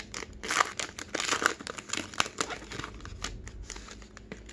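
Foil wrapper of a trading-card pack crinkling and tearing as it is pulled open by hand, a dense crackle with many small clicks, busiest in the first half.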